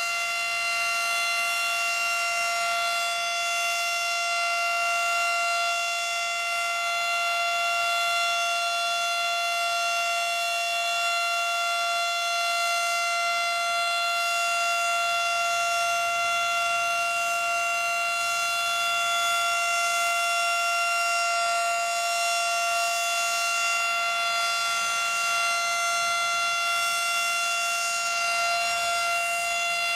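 Federal Model 5 single-tone outdoor warning siren at full speed, sounding one steady, unwavering pitch with many overtones: a steady alert tone.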